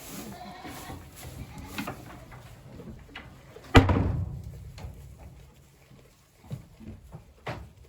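A loud knock a little before the middle, with a short low rumble after it, among scattered smaller knocks and clicks.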